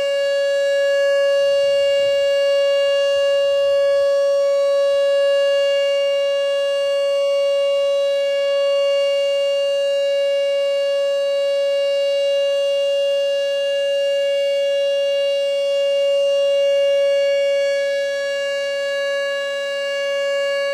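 Whelen WPS 2910 electronic outdoor warning siren sounding its steady alert tone: one loud, unwavering pitch with many overtones.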